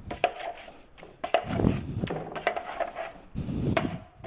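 Metal drywall taping knife scraping joint compound off the edges of a metal mud pan: a run of rasping scrapes broken by sharp metal-on-metal clacks.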